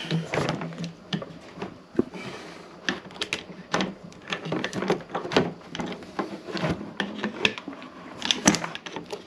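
A flat-blade screwdriver clicking and scraping against a pump motor's metal end bracket while it pries out an old, broken rubber motor mount, making irregular small knocks.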